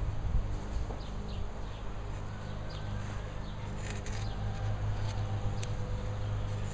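Hand chisel paring wood from a notch in a timber sill, a few short scraping cuts, over a steady low hum.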